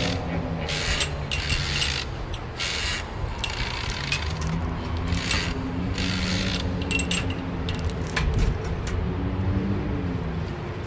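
Added sound effects of mechanical clanking and rattling, with repeated hissing swells about once a second and a cluster of sharp clicks near the end, over a low wavering drone.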